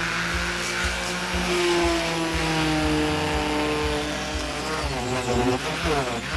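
Random orbital sander running against torch-charred plywood, sanding off the char; its motor whine slides up and down in pitch as it is pressed on and moved over the wood.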